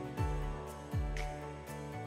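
Background music with a steady beat: a low drum hit about once a second under sustained instrumental notes.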